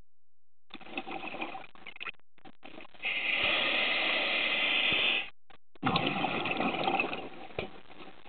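Diver breathing through a scuba regulator underwater: a steady hiss of inhalation for about two seconds, then the bubbling of an exhalation for about a second.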